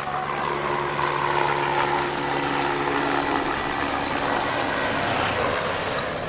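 Helicopter flying past, its rotor and engine noise steady and loud, with a pitch that sinks slightly over the first few seconds.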